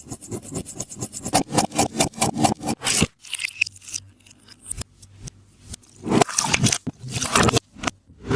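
A taba squishy made of tape and paper being squeezed and rubbed by hand, crinkling and crackling. There are rapid crackling clicks for about three seconds, a quieter stretch, then louder bursts of scraping a little after the middle.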